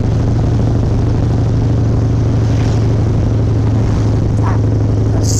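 Harley-Davidson Softail's V-twin engine running at a steady cruise, a constant low drone with road and wind noise over it.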